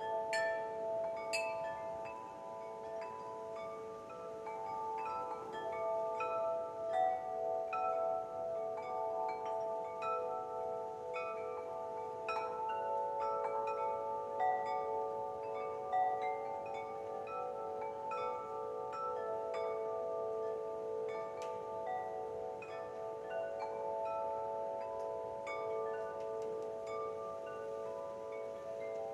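Wind chimes ringing continuously, with many overlapping tones and fresh strikes every fraction of a second.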